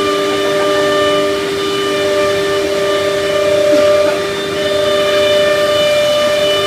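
Spindle of a Philicam F2-9 CNC nesting router cutting a laminated wood panel, a steady whine of several tones over a rushing noise.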